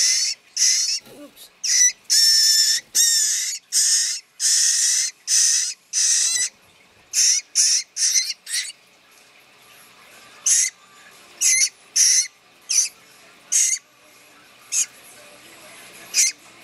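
Blue jay fledgling giving begging calls while being hand-fed: a quick string of short calls for the first six seconds or so, then fewer calls spaced a second or so apart.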